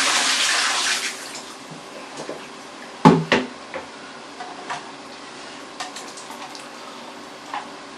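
Water running hard into a sink while the carpet shampooer's dirty-water tank is rinsed; it cuts off about a second in. About three seconds in comes a sharp clunk, followed by a few light knocks and clicks as the tank parts are handled.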